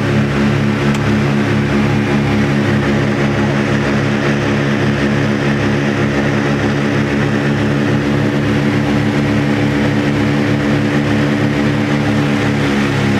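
Twin propeller engines of a Britten-Norman BN-2 Islander heard from inside the cabin, a loud steady drone with a regular throbbing pulse, as the plane makes its low approach to the airstrip.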